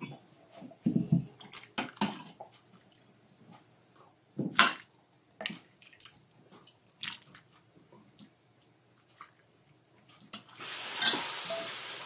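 A stainless steel pot lid lifted off with a clank, then a metal ladle clinking against the pot and soup splashing as it is ladled into bowls, with a longer, steadier pour near the end.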